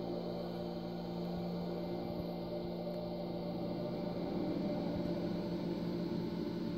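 A steady low hum with several held tones, like a machine or appliance running. One of the tones drops out about halfway through, and the higher ones grow slightly louder.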